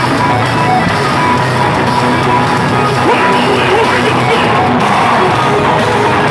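A metalcore band playing live and loud: distorted guitars and drums in a steady wall of sound, with the vocalist's voice rising over it about halfway through.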